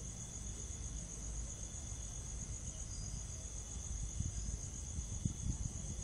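Crickets trilling steadily, a high pulsing chorus over a low rumble, with a few short low bumps in the last two seconds.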